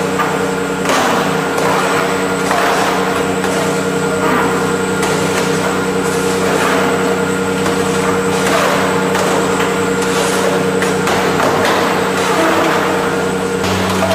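Steady hum of cheese-processing machinery, with a scraping swish about once a second as loose cheese curds are raked down a stainless steel chute.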